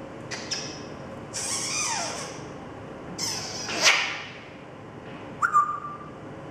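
African grey parrot making four separate calls, mostly raspy and hissy, the third the loudest and rising in pitch. The last is a short, clear whistle near the end.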